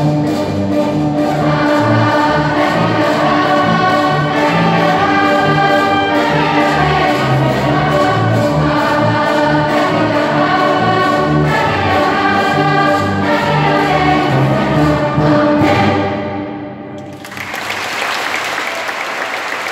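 Children's choir singing with an orchestra of strings and brass, holding full chords over a moving bass line, until the music stops about sixteen seconds in and the last chord dies away. About a second later the audience breaks into steady applause.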